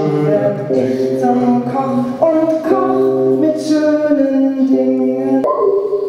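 Voices singing held chords in close harmony, a cappella, the chord changing every second or so. About five and a half seconds in the chord cuts off and a single higher tone carries on.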